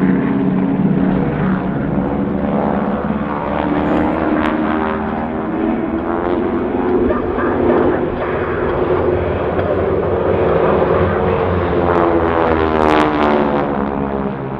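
Four Harvard trainers' nine-cylinder Pratt & Whitney R-1340 radial engines and propellers droning steadily as the formation flies overhead, the pitch sweeping as the aircraft pass.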